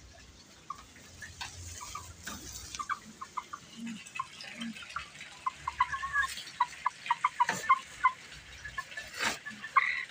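Bantam chickens clucking in short, repeated notes, with a few sharp knocks partway through.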